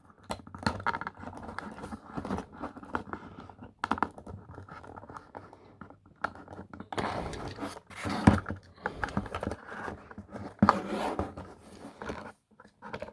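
A blade cutting a toy accessory free of its plastic packaging: irregular scraping, crinkling and tearing of the plastic, broken by sharp clicks a few times.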